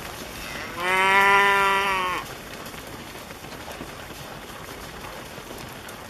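A Charolais cow moos once, a single long, steady-pitched call starting about a second in and lasting about a second and a half.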